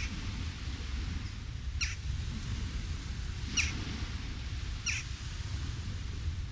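A bird chirping: four short, high calls, each falling quickly in pitch, spaced a second or two apart, over a steady low outdoor rumble.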